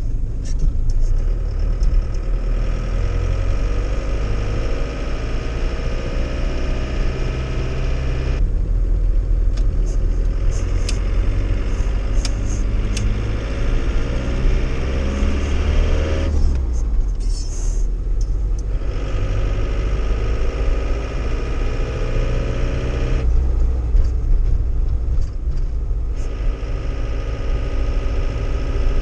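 2.0 turbo diesel engine of a 1993 Iveco Turbo Daily, laden with 800 kg, heard from inside the cab as the truck drives on: the engine note climbs steadily and eases off briefly three times, about eight, sixteen and twenty-three seconds in, as between gear changes.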